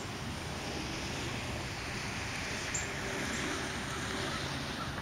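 Steady rushing noise of the flooding Trinity River's fast, muddy water, with a light click about halfway through.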